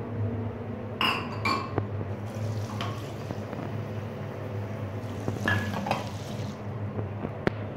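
A small enamel mug clinks twice against a ceramic washbasin, then water runs from the tap into the mug, with a single sharp click near the end.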